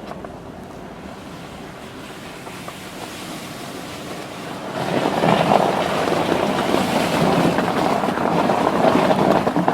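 Steady rushing noise that grows clearly louder about five seconds in.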